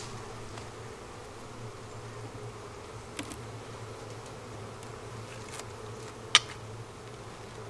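Honeybees buzzing steadily around an open hive. A faint click comes about three seconds in, and a sharp, louder click near the end.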